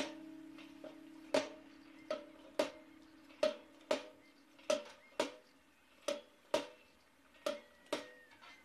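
Hand pump on a brass canister being worked up and down, each stroke giving a sharp clack; about eleven clacks, mostly in pairs about half a second apart.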